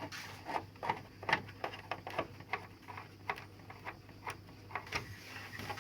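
Irregular sharp clicks and taps, about two to three a second, from a screwdriver driving screws into the plastic casing of a split air conditioner's indoor unit.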